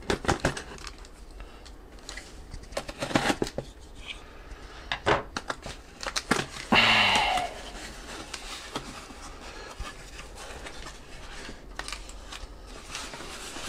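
A folding knife slitting the packing tape on a small cardboard box, then the box being handled and its flaps pulled open, with scattered scrapes, taps and clicks. The loudest moment is a tearing rip about halfway through.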